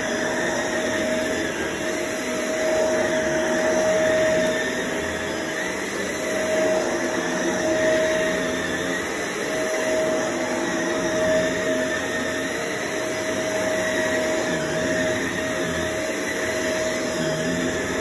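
Stick vacuum cleaner running on carpet: a steady motor whine over the rush of suction. The sound swells and dips a little as the floor head is pushed back and forth.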